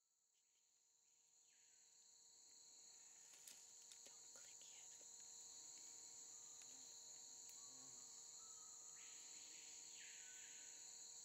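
Faint, steady high-pitched chorus of insects such as crickets, fading in over the first few seconds.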